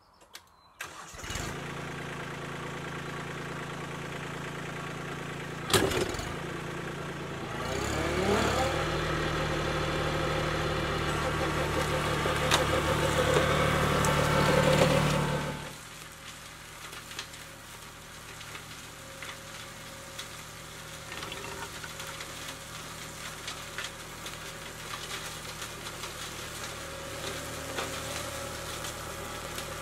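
Kubota B2261 compact tractor's three-cylinder diesel engine starting about a second in and running steadily, with a sharp clunk near six seconds. The revs rise around eight seconds and it runs louder with the front flail mower. From about fifteen seconds the engine is quieter and farther off, with scattered light ticks, as the tractor mows.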